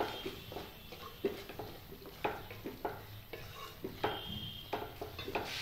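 A spoon stirring the mashed chickpea-and-vegetable pani puri filling in a pan on the stove, with a dozen or so irregular knocks and clinks against the pan, some briefly ringing.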